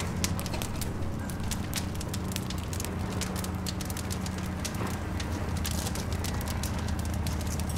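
Wood fire burning in a metal fire bowl: logs crackling with many irregular sharp pops and snaps, over a low steady rumble.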